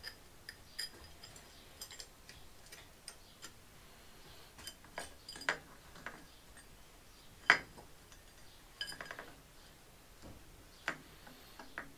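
Scattered light metallic clicks and clinks as the camshaft of a Honda CB750 four-cylinder engine is wiggled out of the cylinder head past its cam chain and sprocket, with one sharper clink about seven and a half seconds in.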